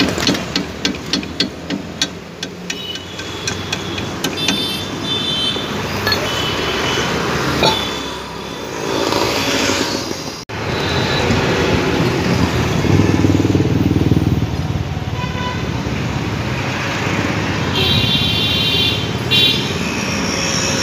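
Street traffic noise with vehicles passing, swelling for a few seconds in the middle, and short high beeps twice. It opens with a quick run of sharp metal knocks, about three a second, for a couple of seconds.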